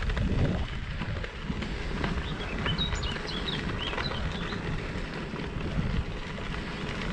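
Wind rumbling on the microphone while riding a bicycle along a gravel track. A small bird chirps several times in quick succession in the middle.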